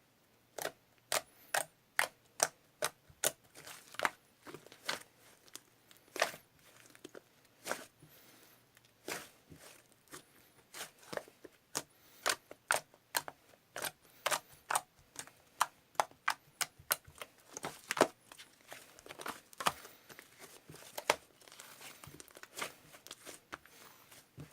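Slime being squeezed and pressed by hand, giving irregular sharp pops and clicks, about one to three a second.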